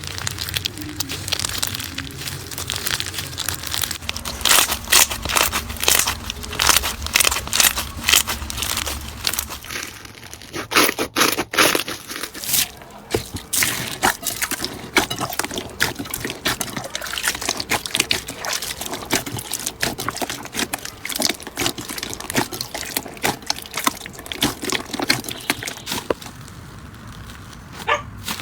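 Hands squishing and poking slime, making a dense run of sticky clicks and pops.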